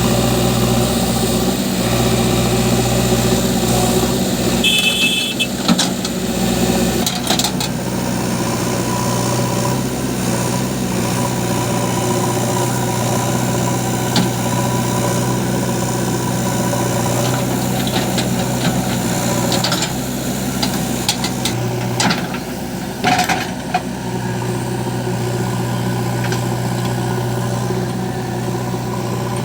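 Diesel engines of a JCB backhoe loader and a tractor running steadily while the backhoe digs and loads mud, with a few short knocks partway through.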